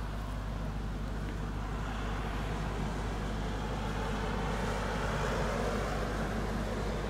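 Boeing 787-9 airliner's jet engines running at low power as it taxis after landing: a steady rumble with a rushing hiss that swells about halfway through as the aircraft turns.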